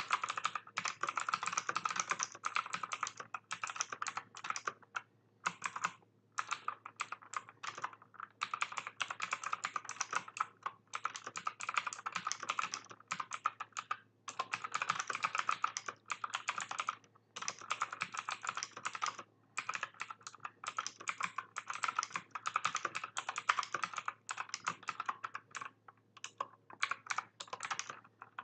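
Typing in bursts on a mechanical keyboard with clicky Outemu Blue switches, rapid loud clicks broken by short pauses; the keyboard still types normally after having water spilled on it.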